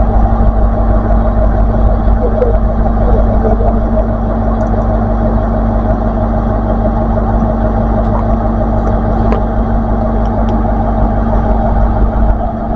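A diesel train's engine idling steadily off-camera, a constant low hum and rumble.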